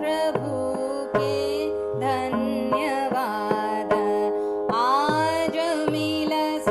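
Indian classical instrumental music: a plucked string melody that bends in pitch over a steady drone, with tabla strokes whose bass notes slide down in pitch.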